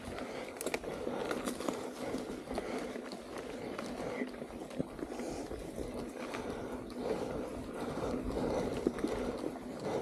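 Mountain bike ridden fast down a dirt singletrack: knobby tyres rolling on packed dirt, with the bike rattling and knocking over small bumps.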